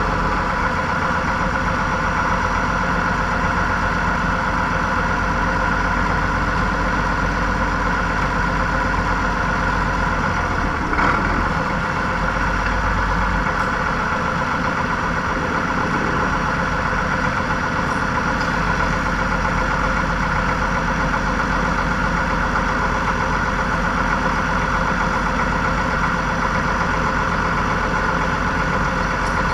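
Tractor engine running steadily at a constant speed, with a single brief clunk about eleven seconds in.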